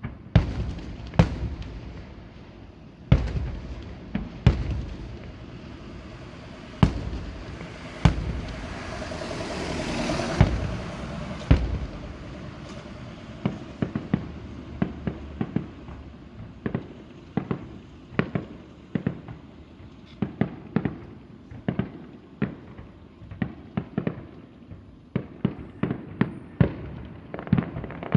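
Aerial fireworks shells bursting: about eight heavy booms in the first twelve seconds with a hissing swell near ten seconds in, then a quick, dense run of smaller sharp bangs.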